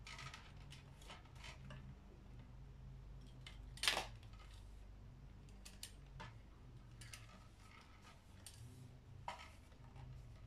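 Plastic clicks and rattles of a ring light being handled and fitted on its tripod stand, with one sharp, loud click about four seconds in and a smaller one near the end, over a faint steady hum.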